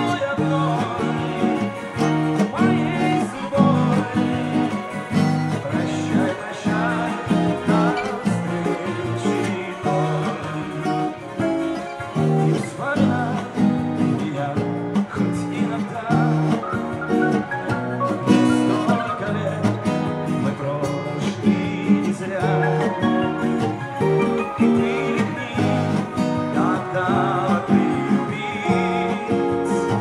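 Acoustic guitar playing a song's chord accompaniment, fingers picking and strumming the strings in a steady, continuous rhythm.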